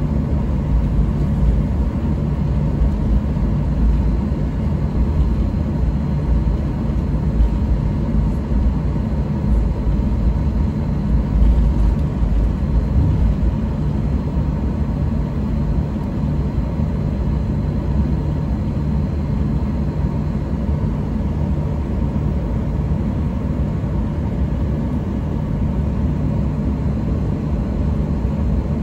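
Steady low rumble of a Boeing 737-800 heard from inside its cabin while on the ground: the CFM56 engines at idle and the cabin air supply, with faint steady whining tones above the rumble.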